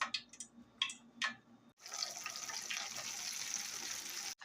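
A few light clicks and taps, then a steady hiss from the chicken wings frying in hot oil.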